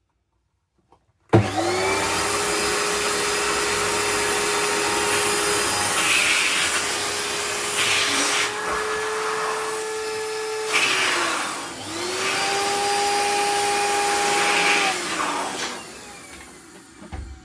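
Electric balloon inflator running as it blows up a latex balloon. It starts abruptly and runs steadily, then winds down and stops about ten seconds later. It starts again for a few seconds and winds down once more.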